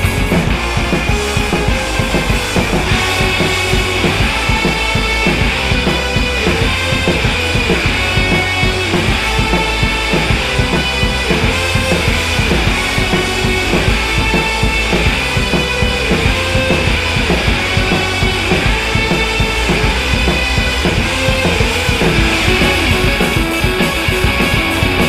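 Instrumental rock music in an angry mood, with a driving drum kit and guitar, loud and unbroken.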